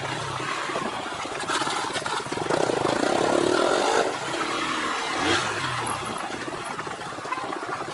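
Motorcycle engine running while riding, with rushing wind noise on the microphone; it gets louder for a stretch in the middle.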